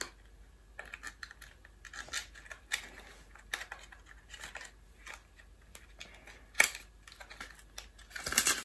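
Fingers and fingernails scratching, tapping and picking at a small cardboard box as its flap is prised open: soft, irregular clicks and scrapes, with a sharper one about two-thirds of the way through and a quick flurry near the end.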